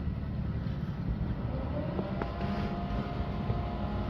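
Crane engine running steadily under load during a lift, a low rumble with a faint steady whine joining about halfway through.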